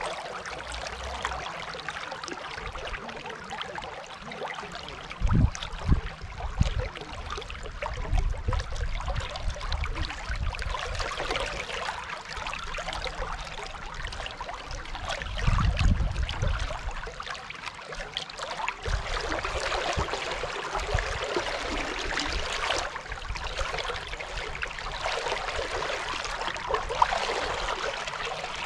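Steady rush of river water on the Dunajec. A few short, low thuds break in about five and six seconds in and again around sixteen seconds.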